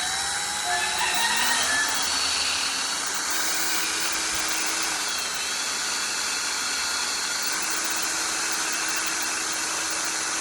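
Electric grinder running continuously, grinding the tip of a hardened steel gib screw to a point. It is a steady grinding noise with a faint whine that shifts in pitch a few times.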